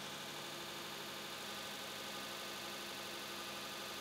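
Woodturning lathe running steadily, spinning a glued-up plywood sanding drum that is being trued against 80-grit sandpaper: an even motor hum with a hiss.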